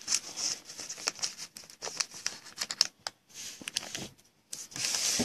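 Foil trading-card pack wrapper crinkling and tearing as it is pulled open by hand: a run of irregular sharp crackles with short pauses, and a denser rustle near the end.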